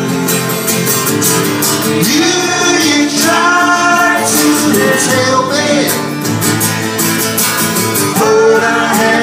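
Live band music: an acoustic guitar and a resonator guitar playing a song together, with melodic lines bending over the top between sung verses.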